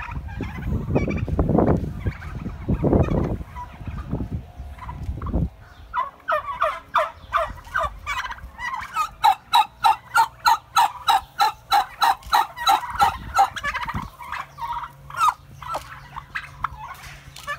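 Turkeys gobbling: many rapid rattling calls overlapping, densest in the middle, with a low rumble under the first few seconds.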